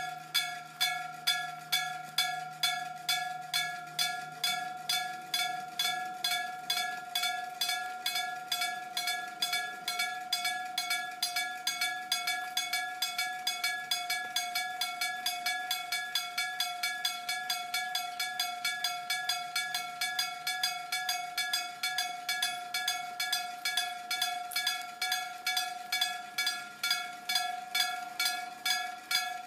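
Japanese level-crossing warning bell ringing, a steady rapid ding repeated evenly, about two to three strikes a second. A faint low rumble of a train fades away over roughly the first ten seconds.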